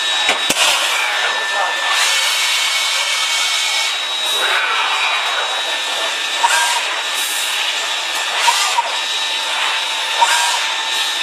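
CNC left-and-right tube bending machine running through a bend: a steady whirring with a few sharp clicks as the head and clamps move, with voices in the background.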